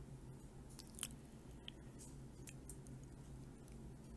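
A few faint, scattered computer mouse clicks, the sharpest about a second in, over a low steady hum.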